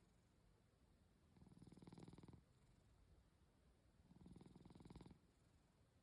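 Faint snoring from a sleeper: slow, even breaths, each about a second of fine rattle, two of them about 2.7 seconds apart.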